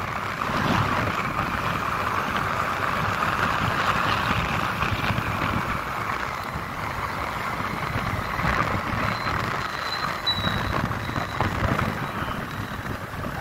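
Motorcycle running while being ridden, a steady engine rumble under continuous road and wind noise.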